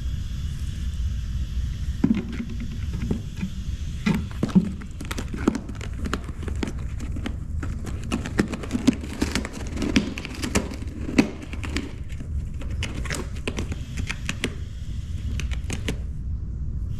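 Irregular light clicks and taps from a plastic cat toy being batted and played with, over a steady low rumble.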